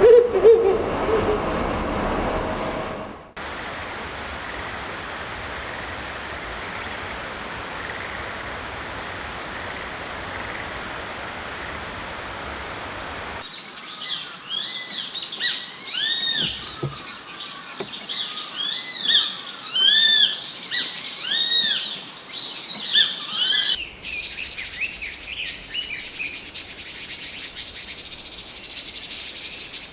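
A Ural owl's low hoot, cut off about three seconds in. Then Grey-faced buzzard calls over steady background noise, with a run of repeated rising-and-falling whistles in the middle. A Red-billed Leiothrix's song starts near the end.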